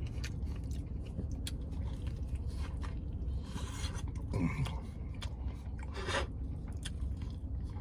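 Close-up chewing of a burrito, with small wet mouth clicks and a louder bite and wrapper rustle about six seconds in, over a steady low hum.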